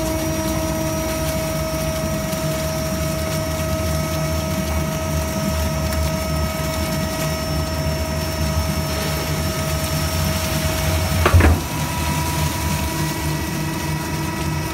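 Swing arm plastic shredder running, its toothed rotor chopping plastic film: a steady motor hum with a low rumble. There is a brief loud clatter about eleven seconds in.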